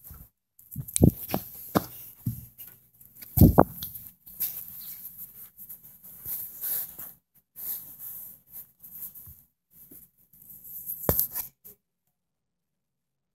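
Handling noise from a phone with its microphone covered: rubbing, rustling and irregular bumps, then cutting off to dead silence near the end.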